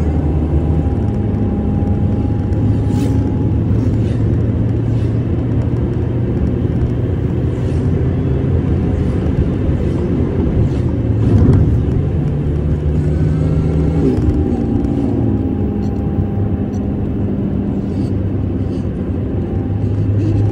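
Car driving along a road, heard from inside the cabin: a steady engine hum with tyre and road noise, the engine's pitch shifting a few times.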